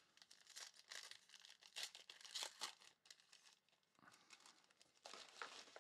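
Foil wrapper of a 2020 Mosaic UEFA Euro soccer trading-card pack being torn open and crinkled by hand, in quick faint rustling strokes. There is a short lull about three seconds in, then another crinkle near the end.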